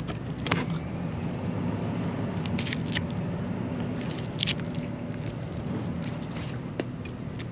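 Knife cutting along a large fish's backbone and rib bones: scattered wet crunches, crackles and a few sharper snaps. Under them runs a steady low hum of marina background noise.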